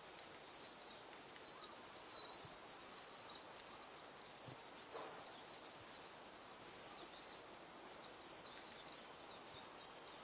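Japanese white-eyes calling: many short, high-pitched chirps in irregular runs, over faint outdoor background noise.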